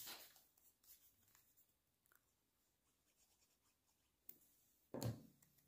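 Quiet paper-craft handling: a glue pen rubbed over a small paper die-cut, with faint paper rustling at the start. There is a short click about four seconds in and a louder, brief thump about five seconds in.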